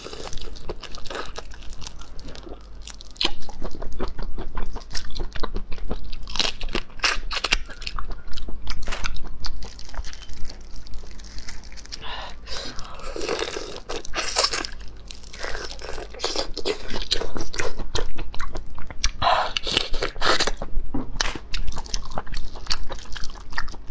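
Close-up chewing of marinated black tiger prawns: many sharp, irregular crunches of prawn shell between wet, squishy chewing.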